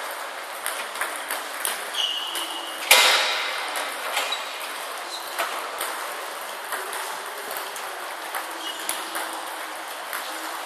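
Table tennis balls clicking off bats and tables at many tables at once, an irregular patter of hits that echoes through the hall. About three seconds in, one much louder bang rings out, and a few short high squeaks are heard.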